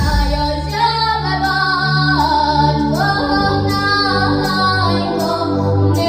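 A girl singing a Ukrainian folk song into a microphone over a backing track with a steady bass line, her long held notes stepping up and down.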